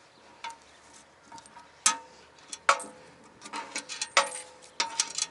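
Coins clinking as they are handled and dropped one at a time into a slotted pay box: about six sharp metallic clinks, each with a short ring, spread over a few seconds.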